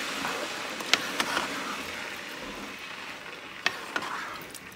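Wooden spoon stirring rice and vegetables in chicken broth in a pot, with a soft sizzling hiss that slowly fades and a few light knocks of the spoon against the pot.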